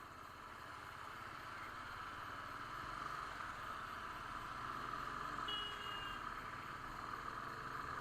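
Muffled riding noise from a Royal Enfield Classic 350 on the move: a steady rush of wind and road with the engine's low hum underneath, slowly growing louder. A short high beep sounds about five and a half seconds in.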